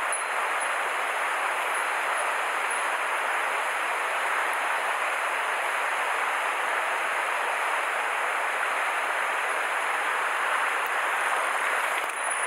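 Mountain stream water rushing steadily, an even unbroken hiss.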